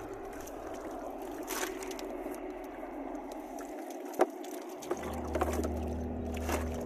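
Water dripping and trickling off a cast net as its catch of tilapia is shaken into a plastic tub, with a few sharp knocks. A low steady hum comes in about five seconds in.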